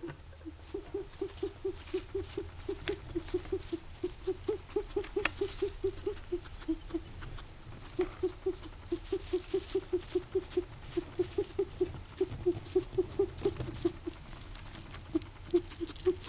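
Guinea pig making a rapid, rhythmic pulsing noise: short pitched pulses at about five a second, in long runs with a couple of brief pauses. The owner likens it to wheezing and does not know the cause.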